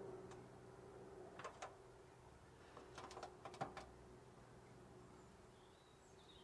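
Quiet handling of a thin steel baking tray: a few light taps and clicks as it is turned over in the hands, over a faint steady hum.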